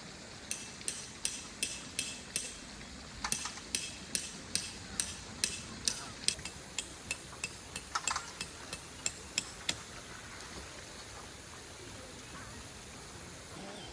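A run of about two dozen sharp taps, two to three a second, that stops near ten seconds in, over a faint steady background hiss.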